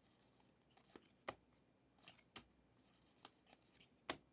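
Trading cards being handled and flipped through: soft rustles of card stock with a few sharp clicks, the loudest near the end.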